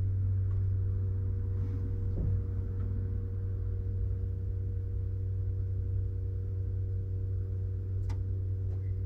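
2009 second-generation Toyota Prius just switched to Ready, its hybrid system giving a steady low hum with fainter higher tones that cuts off near the end.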